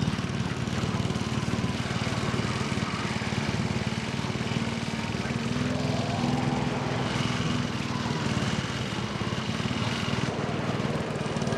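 Petrol lawnmower engine running steadily at high speed, its blades cutting, with cries rising over it partway through.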